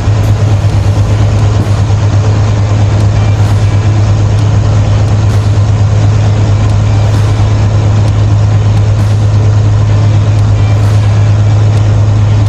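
A crane's diesel engine running steadily, a loud, even low hum with no change in speed.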